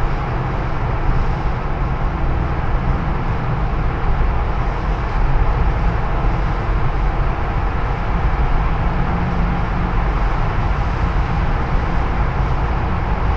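Steady road noise inside a moving car's cabin: tyre and engine rumble at cruising speed, heard while driving through a road tunnel.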